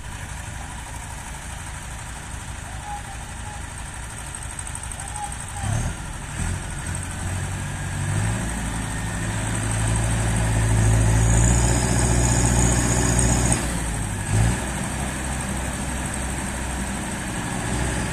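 Massey Ferguson 5435 tractor's diesel engine straining with a loaded manure trailer in deep mud: it runs steadily at first, revs up and holds high for several seconds, then drops back, with a short thump soon after.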